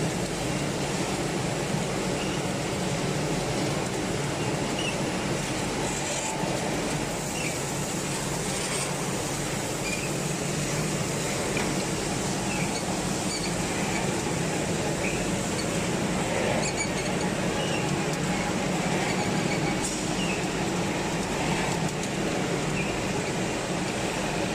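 Hot-air butterfly popcorn popping machine and its conveyor line running: a steady mechanical hum and rushing noise from the running machinery, with faint scattered ticks.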